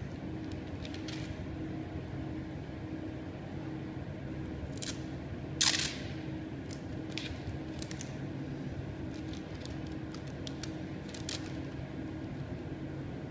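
Light crackles and clicks of thin plastic film being handled and peeled on a glass panel, over a steady low room hum, with one short loud rasp about halfway through.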